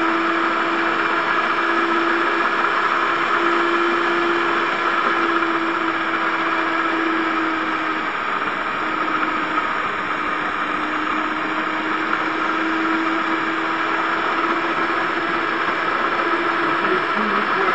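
Electric stand mixer running at a steady speed, its motor giving a steady whine while the twin beaters churn the egg batter for brioche dough.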